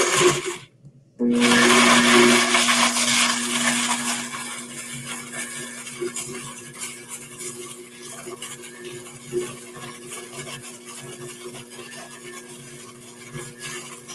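Countertop blender puréeing roasted onions, garlic and olive oil into a creamy spread. It cuts out briefly just under a second in, then starts again and runs with a steady hum, getting quieter from about four seconds in.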